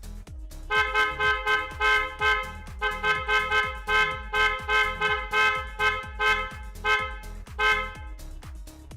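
Hella-type TST electric car horn sounded in a rapid series of short toots, about three a second, stopping about eight seconds in. Background music with a steady beat plays underneath.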